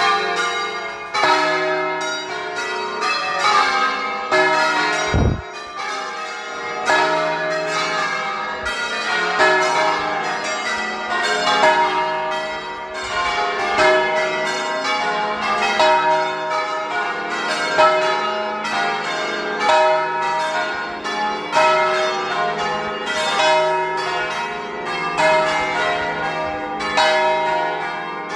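Concert of nine large church bells tuned in E-flat, rung by hand by a team of ringers in the Veronese style: a rapid, continuous succession of strokes with the tones overlapping and ringing on.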